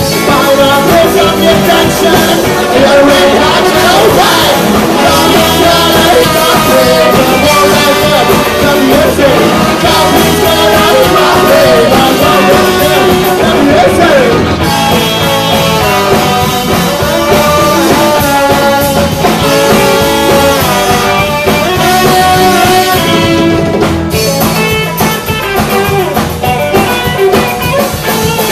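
A live rock band with horns playing an instrumental passage: electric guitar, bass guitar and drum kit, with trombone and saxophone playing over them.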